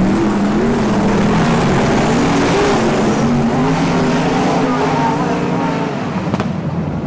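A pack of winged speedway Modified race cars running together on a dirt oval. Several engines overlap, their pitch rising and falling as they work through the turn and onto the straight.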